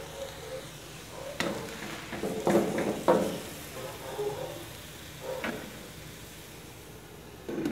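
Wooden spatula stirring sliced cucumber in a black wok on a gas burner, knocking and scraping against the pan about four times, over a steady hiss of the food cooking in the pan.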